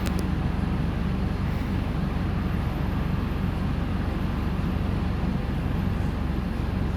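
Mercedes-Benz OF-1418 bus diesel engine running steadily under way, a constant low hum that holds the same pitch throughout.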